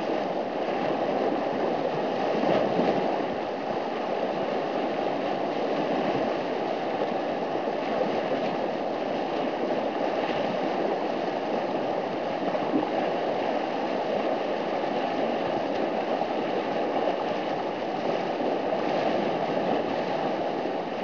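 Whitewater rapids rushing steadily: the constant churn of a creek's play hole, a hydraulic of foaming water.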